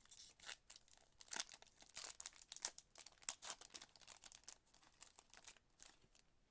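Trading card pack wrapper being torn open and crinkled by hand, a quick run of sharp crackles that dies away about five and a half seconds in.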